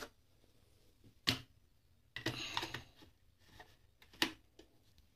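A blender jar knocking and clicking as it is handled and set onto the motor base: a sharp knock about a second in, a short clattering patch about two seconds in, and another sharp knock near four seconds.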